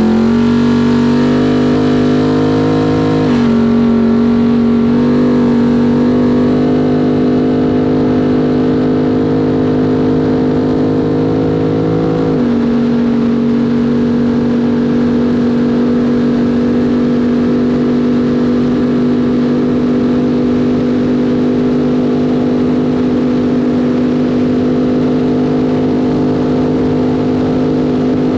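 Trophy truck engine under full throttle, accelerating hard with an upshift about three seconds in and another about twelve seconds in, each dropping the pitch. After that it runs steadily at high speed.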